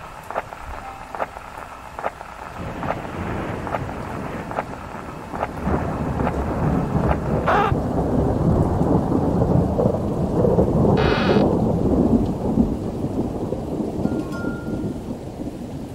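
Thunderstorm: rain with a long rolling rumble of thunder that builds from about three seconds in, is loudest in the middle and then eases off. A few sharp ticks come in the first two seconds, and two brief high-pitched sounds come during the loudest part.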